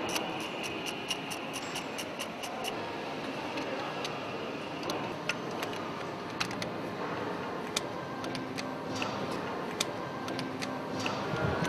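Spanner work on the pipe fittings of a MaK M 32 C diesel engine: a run of light metallic clicks, several a second for the first few seconds and sparser after, over a steady workshop background.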